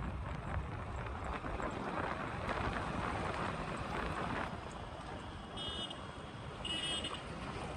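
A motorcycle riding along a street: steady engine and road noise, with wind buffeting the microphone.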